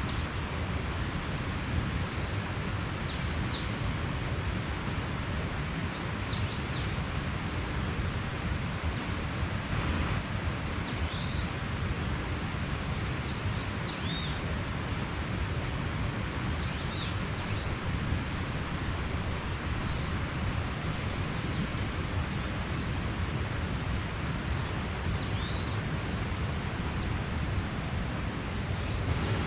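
Mountain stream running with a steady rush. Over it a bird gives short, high, arched chirps, repeating every second or two.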